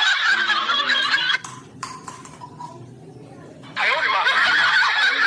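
A laughter sound effect, played twice: a burst of laughing that stops about a second and a half in, then the same laugh starts again near the end.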